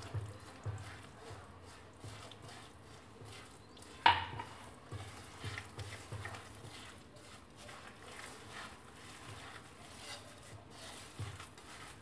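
A hand mixing moist semolina with milk in a bowl: repeated soft, wet rubbing strokes as the dough is worked, with one sharp knock about four seconds in.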